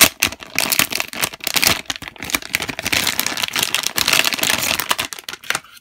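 Clear plastic packaging bag crinkling loudly as it is opened and a foam squishy toy is pulled out of it, a dense run of crackles that stops suddenly at the end.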